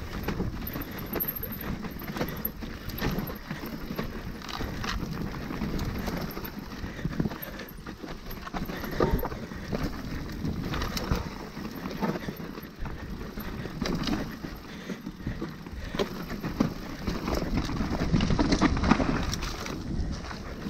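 Hardtail mountain bike ridden along a dirt trail: tyres rolling over the ground with frequent knocks and rattles from bumps.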